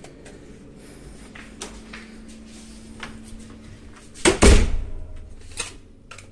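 A wooden door swinging shut with one heavy thump about four seconds in, followed by a lighter knock, over soft handling rustle.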